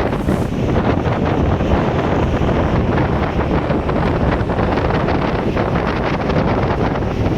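Strong storm wind blowing across the microphone: a steady, dense rush of noise heaviest in the low end.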